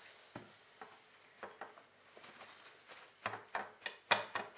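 Soft rustling of paper towel, then several light knocks on a ceramic plate as pieces of fish are patted dry, the loudest a little after four seconds in.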